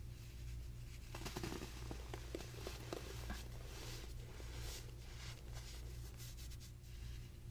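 Dry, caked baking soda being crumbled, giving clusters of small crisp crackles and crunches that come and go, over a low steady hum.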